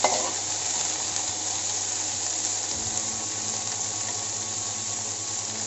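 Diced vegetables (peas, onion, capsicum) sizzling in hot oil in an aluminium kadhai as they are sautéed: a steady hiss, with a low hum underneath.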